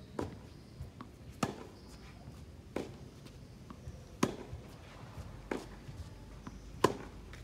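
Tennis ball hit back and forth between two racquets in a baseline rally, one sharp pop about every second and a third. The louder hits alternate with softer ones from the far end of the court, and fainter ball bounces fall between them.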